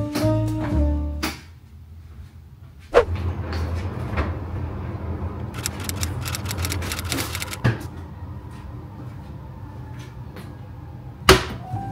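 Jazz background music stops a little over a second in. Kitchen handling sounds follow: a sharp knock, a run of clinks and clicks from jars and bottles in the fridge door, and a loud clunk near the end as a metal saucepan is set down on the hob.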